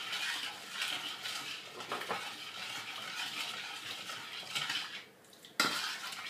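A metal spoon stirring brine in a stainless steel pot, scraping and clicking against the pot, followed by one sharp knock near the end.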